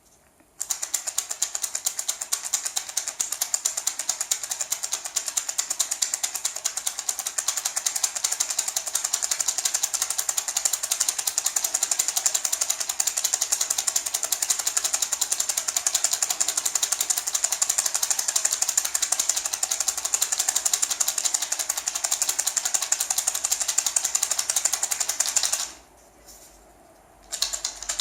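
A small dried-gourd maraca (rattle) shaken rapidly and without let-up, a dense, bright rattle. It stops briefly near the end and then starts again.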